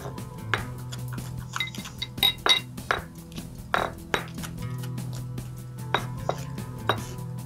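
Kitchen knife knocking and clinking against a cutting board as fresh garlic is chopped: irregular sharp strikes, a few with a short metallic ring.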